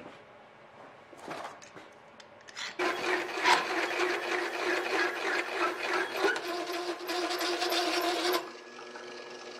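Circle cutter in a drill press cutting a lightening hole through thin aluminium sheet. The machine hums at first. About three seconds in, the cutter bites and a loud, harsh scraping with a steady whine runs for about five seconds. It stops when the cutter breaks through, and the spindle runs on alone.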